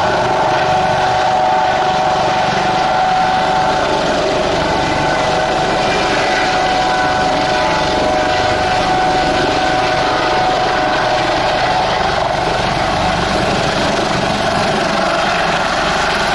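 Eurocopter AS365 Dauphin helicopter hovering low and turning in place, its main rotor, turbines and fenestron tail fan running with a loud, steady whine.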